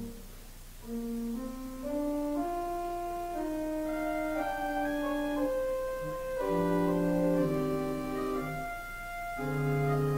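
Organ music: a slow melody of held notes over sustained chords, quieter for the first second before it swells in.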